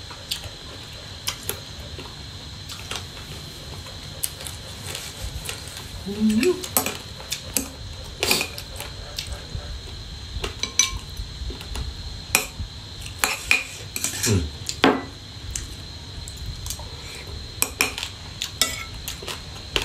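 Metal spoon clinking and scraping on a ceramic plate during a meal: irregular sharp taps throughout.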